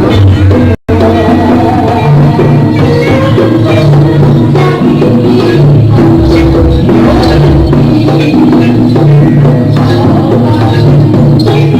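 Live jaranan music: a Javanese gamelan-style ensemble of drums and tuned percussion playing a loud, steady rhythm. The sound cuts out for an instant about a second in.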